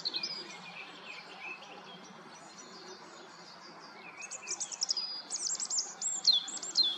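Songbirds singing, several overlapping chirps and trills. In the second half come louder, quick high notes and down-sweeping whistles.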